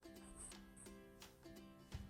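Quiet intro music: plucked notes, likely a guitar or ukulele, at a steady, even pace.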